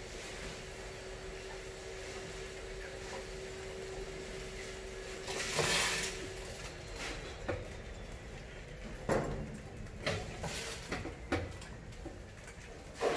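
Aluminium cans rattling as they spin on the trap's rod under climbing mice, with a run of short knocks and scrabbles as mice drop onto the floor of a glass tank. The loudest clatter comes about halfway through, and several smaller ones follow.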